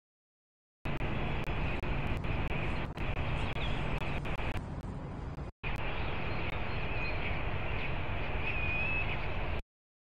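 Steady hum of city traffic picked up by the nest-box microphone of a live falcon cam. The audio cuts out to dead silence at the start, briefly in the middle and near the end as the stream drops, with a faint high chirp just before the last cut.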